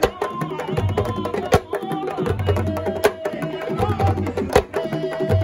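Live wrestling-arena drumming, including a tama talking drum struck with a stick, playing a fast rhythm with a sharp loud stroke about every second and a half. Voices sing or chant over the drums.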